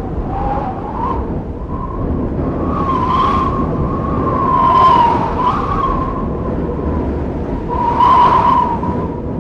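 Blizzard wind howling with a wavering whistle over a steady rush, swelling in gusts about three, five and eight seconds in.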